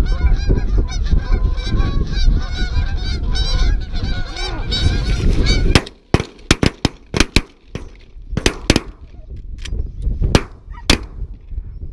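A flock of Canada geese honking loudly, with wind rumbling on the microphone. About six seconds in, the calls break off into a rapid volley of a dozen or so shotgun shots, fired in quick clusters as the geese flare over the decoys.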